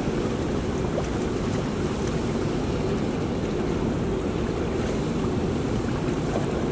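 Steady rush of turbulent water churning out of a dam spillway, an even low-pitched wash with some wind on the microphone.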